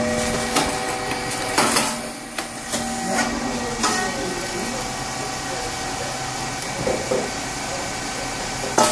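Puffed rice cake machine running through its pressing and baking cycle with a steady hum and hiss and a few sharp mechanical knocks. Near the end comes a loud sharp pop as the heated mould releases the next batch of puffed rice cakes.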